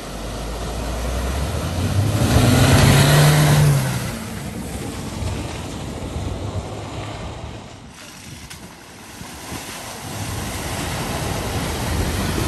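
Cars driving through deep floodwater at a ford: an engine revs up with a rising pitch while the wheels throw up a rushing wash of water, loudest about two to four seconds in. It eases off, then another car pushes through the water near the end.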